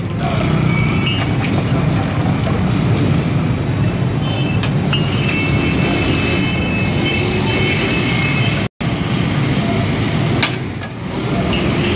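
Busy street traffic noise: a steady rumble of motor traffic with a few short knocks, cutting out for an instant about two-thirds of the way through.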